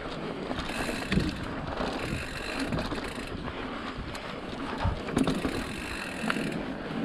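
Mountain bike being ridden over a rough dirt trail: the chain and frame rattle steadily over roots and bumps, with a few sharp knocks, and wind on the microphone.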